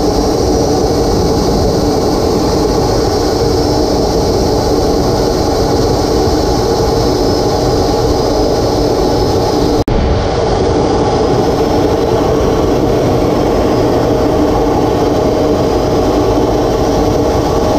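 Jet trainer's turbojet engine and airflow noise heard aboard in flight: a loud, steady rush with a faint high, wavering turbine whine. It cuts out for an instant about ten seconds in.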